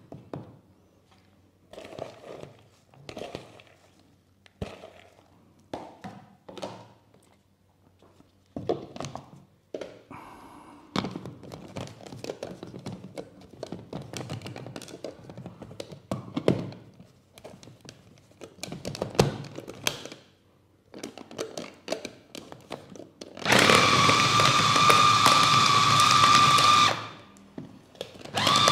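Scattered knocks and scrapes of a utensil and lid against a plastic food-chopper bowl. Then, near the end, the electric food chopper's motor runs loud and steady with a whine for about three seconds, churning thick fish-ball dough; it stops briefly and starts again just before the end.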